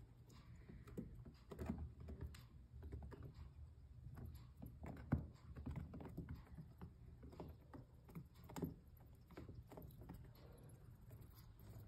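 Pet hedgehog moving about a plastic enclosure floor: faint, irregular tapping and clicking of its feet and claws on the plastic, with a couple of sharper taps about five and eight and a half seconds in.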